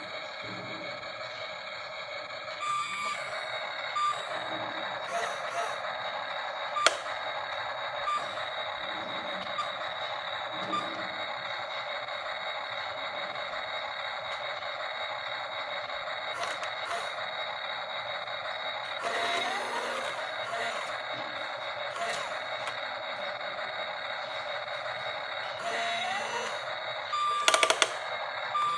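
Toy remote-control excavator working its boom and bucket: a steady buzzing whir from its small motors and speaker, broken by short beeps now and then and a couple of short rising tones.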